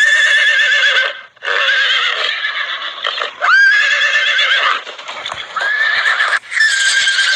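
Horse neighing: a string of loud whinnies, about four of them, each with a wavering, quavering pitch and short breaks in between; one starts with a sharp upward sweep.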